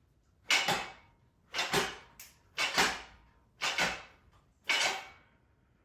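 A series of five clunks or knocks, evenly spaced about a second apart. Each is a quick double hit that fades fast, as from something hard being struck or shut.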